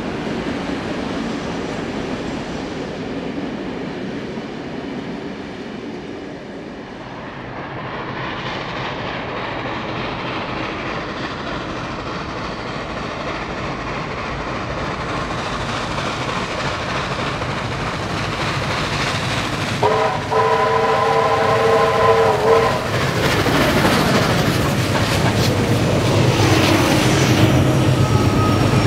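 A steam-hauled passenger train led by Beyer-Garratt 6029 works up a steep grade with steady running and exhaust noise that grows as it approaches. About two-thirds of the way through, a locomotive gives one long blast of about three seconds. Then the train passes close, loudest near the end, its pitch falling as it goes by.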